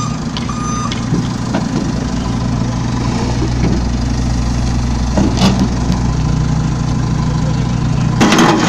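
JCB backhoe loader's diesel engine running steadily at idle, with two short beeps of its reversing alarm in the first second. A burst of noise just before the end.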